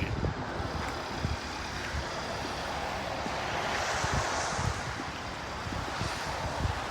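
Wind buffeting the microphone in irregular low gusts over a steady rushing noise, which swells briefly about four seconds in.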